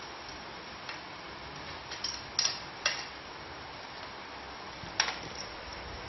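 Scattered sharp clicks and taps of a baby tricycle's plastic and metal parts as a rear wheel is pushed onto its axle by hand, about five in all, with a quick pair in the middle and the loudest about five seconds in, over a steady background hiss.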